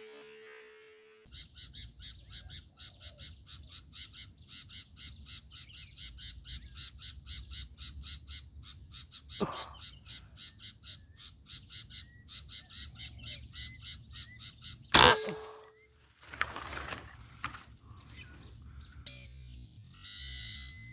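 Forest animal calls: a rhythmic chirping that pulses a few times a second over a steady high whine. A sharp, loud click cuts in about fifteen seconds in.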